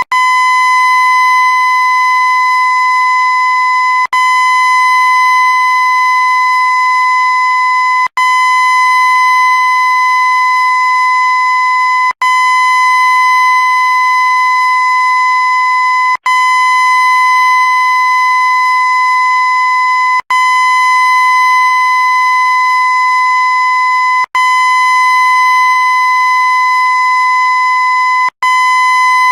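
Loud, steady high-pitched horn-like tone at one unchanging pitch, looped. It cuts out for an instant and restarts about every four seconds.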